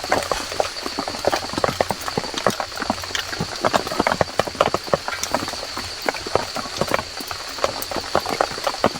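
Raindrops dripping from the trees onto fallen leaves and a tarp, in dense, irregular drips and taps, over a steady high tone.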